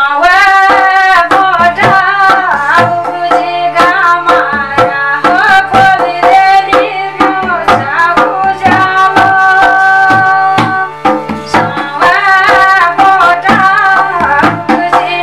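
A woman singing a Pahari folk song, her voice line bending and ornamented, over a steady low drone and a regular hand-drum beat.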